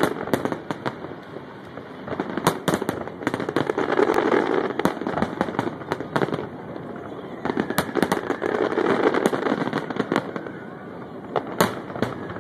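Fireworks finale: aerial shells bursting in rapid, irregular succession, sharp bangs several times a second over a continuous crackling din.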